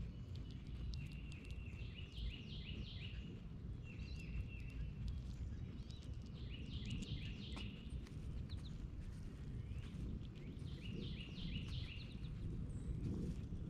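A songbird singing three phrases of quick, repeated downslurred notes, with short gaps between phrases, over a steady low background rumble.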